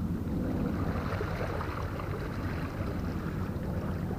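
Steady low rumble of wind on the microphone and waves washing against the rocks of a seawall breakwater.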